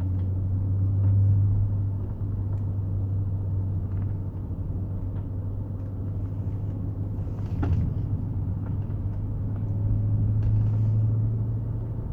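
BMW E39 535i's front left corner giving a single sharp clunk about eight seconds in as the steering is turned, with a few fainter ticks, over the steady low hum of the idling car, which swells twice. The clunk persists although the outer and centre tie rods, bushings, springs and shocks have all been replaced.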